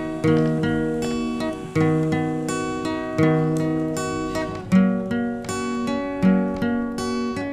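Background music: an acoustic guitar strumming chords, a new chord about every second and a half.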